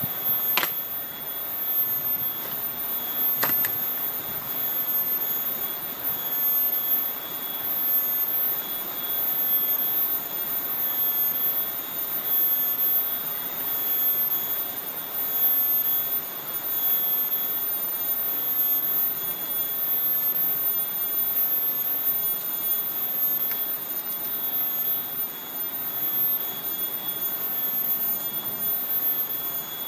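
Cicadas (kinjeng tangis) calling in one steady, unbroken high drone over a constant rustle of leaves. Two light ticks, about half a second and three and a half seconds in, are falling teak leaves landing.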